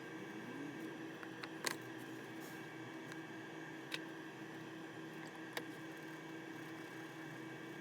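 A steady electrical hum with three short, sharp clicks about two seconds apart; the first, about a second and a half in, is the loudest.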